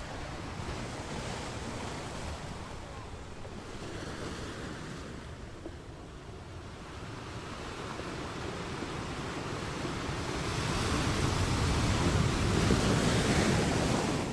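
Ocean waves washing ashore in a steady surf, with one wave building and breaking loudest near the end.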